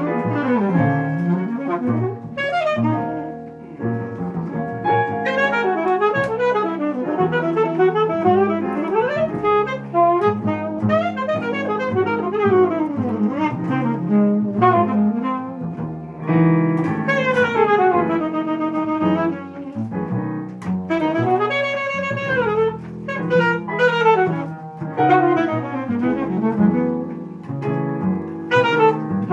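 Alto saxophone improvising jazz: quick runs of notes and phrases that sweep up and down, with short breaks between phrases.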